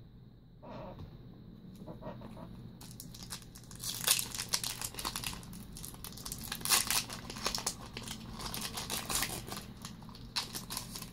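Foil Yu-Gi-Oh Magic Ruler booster pack wrapper crinkling and tearing as it is handled and opened. It is a rapid run of crackles, heaviest from about three seconds in until near the end.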